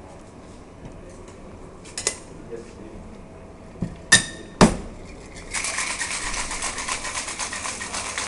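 Stainless steel cocktail shaker: a few sharp metallic clinks as it is handled and capped. About five and a half seconds in, hard shaking starts, with ice rattling fast inside the metal.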